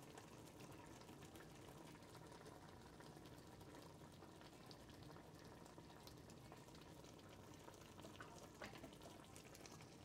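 Faint bubbling of a mustard gravy simmering in a pan on the stove, with a few small ticks.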